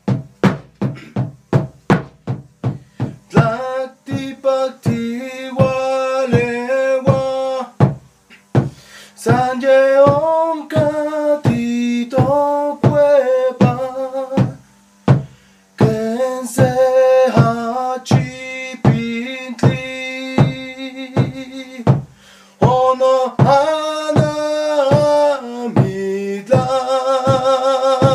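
A man chanting in long held notes over a drum struck with a stick in a steady beat of about two strokes a second. The drum plays alone for the first few seconds, and the singing breaks off for short pauses.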